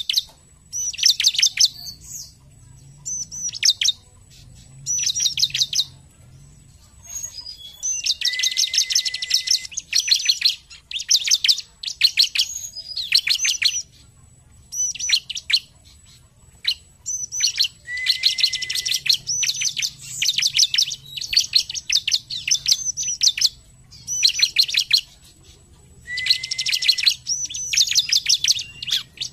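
Bar-winged prinia (ciblek) singing energetically: bursts of high, rapid chirping notes, each lasting one to three seconds, repeated with short pauses between them.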